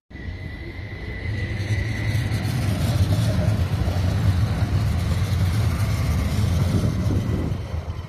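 A tram passing by: a low rumble that builds over a second or two, stays loud through the middle and fades near the end, with a thin high whine over it at first.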